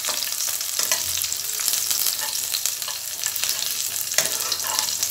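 Whole spices and raisins sizzling in hot oil and ghee in a frying pan while a spatula stirs them, with a few scrapes and knocks of the spatula against the pan.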